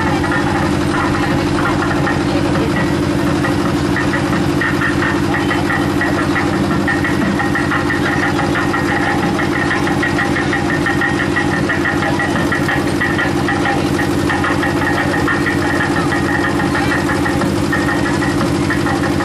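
An engine running steadily at idle, a constant even drone with no change in speed.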